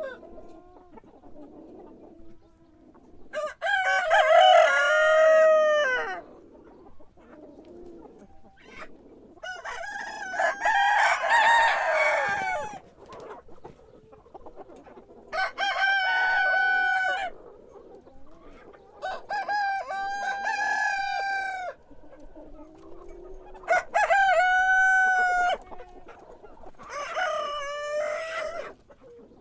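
Rooster crowing again and again: about six long cock-a-doodle-doo calls, one every four to five seconds, with quiet gaps between them.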